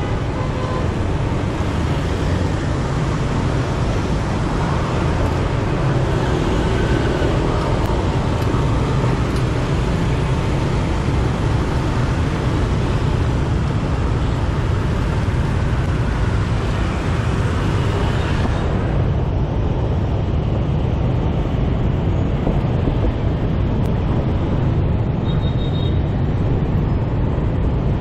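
Steady street traffic and road noise heard while riding through city streets, with a strong low rumble.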